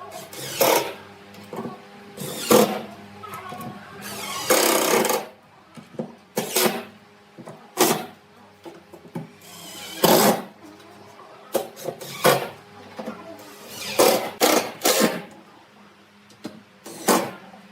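Woodworking workshop sounds: a string of short knocks and brief scraping or tool bursts on wood, irregularly spaced about a second or two apart, with a couple of longer bursts.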